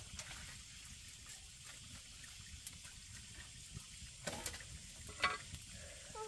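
Steady rush of running water in the background, with two sharp knocks with a brief ringing about four and five seconds in, the second louder: a machete striking bamboo.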